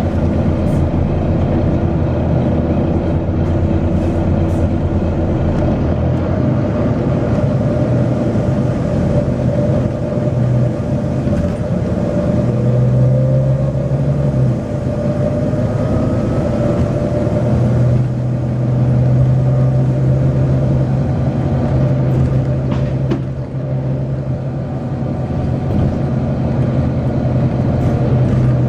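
Volvo B9TL double-deck bus's diesel engine running, its note shifting as it pulls and eases off several times, with a faint rising whine around the middle.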